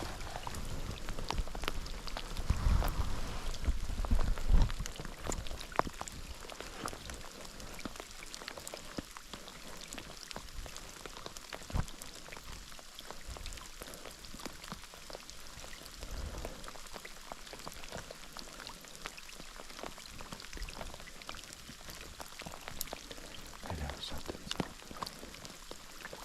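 Rain falling, the drops landing as a steady patter of scattered ticks. About two to five seconds in there are loud low rumbles, like wind or handling on the microphone.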